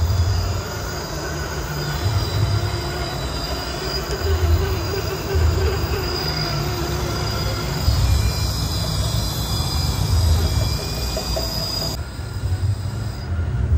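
Electric motors and gears of 1/10-scale RC crawler trucks whining as they crawl slowly, over a steady low rumble that swells every second or two.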